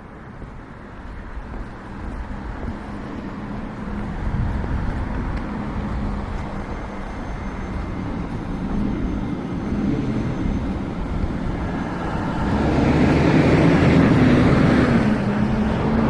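A motor vehicle approaching and passing close by, its engine hum growing steadily louder and loudest near the end.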